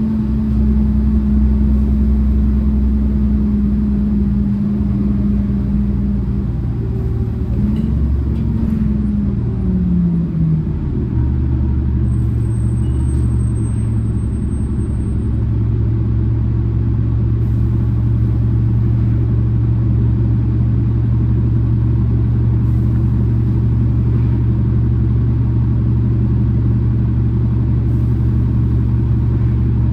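Orion VII city bus heard from inside while riding: a steady engine and drivetrain drone over a low road rumble. About ten seconds in the engine note glides down in pitch, then holds a steady lower drone.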